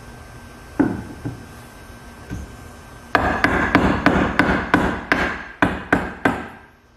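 A hammer striking wood: one knock about a second in, then a quick run of about ten blows, some three a second, that stops shortly before the end.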